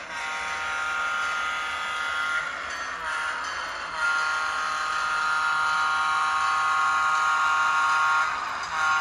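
Horn of a sound-equipped HO scale EMD SD7 model locomotive played through its small onboard speaker: a chime horn held for about two seconds, then a longer blast from about four seconds in to about eight, and a third starting near the end.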